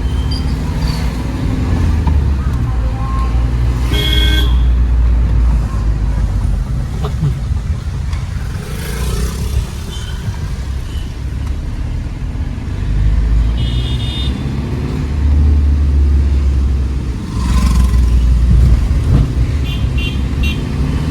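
Maruti car driving on a road: a steady low rumble of engine and road noise. Vehicle horns honk about four seconds in and again around fourteen seconds, with a few short toots near the end.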